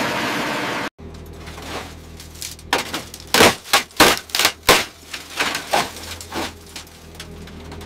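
A loud grinding noise cuts off abruptly about a second in. Then a low steady machine drone runs under a quick run of about a dozen sharp metal clanks and crashes as an excavator's grapple tears into a stripped aircraft fuselage.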